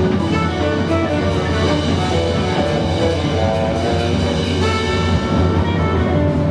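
A jazz band playing live: saxophone, guitar, piano, double bass and drum kit together, with many held notes over a steady bass line.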